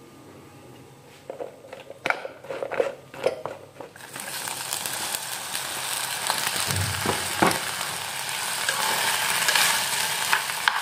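Chopped okra going into a pan of hot oil: a few knocks and clatters first, then steady sizzling from about four seconds in, with a spoon stirring near the end.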